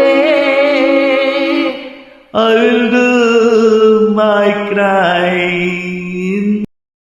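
Closing bars of a karaoke song: long held, wavering sung notes over soft backing music. They fade away about two seconds in, then a final held note comes in, steps in pitch twice, and cuts off suddenly near the end.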